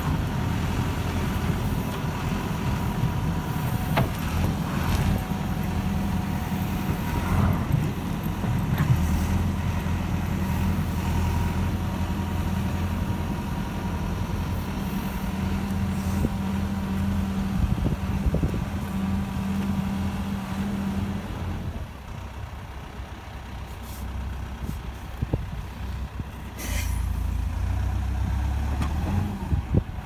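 CAT 428F backhoe loader's diesel engine running under load while the backhoe works, with a few knocks. About 21 seconds in the engine drops to a quieter idle, and it picks up again a few seconds before the end.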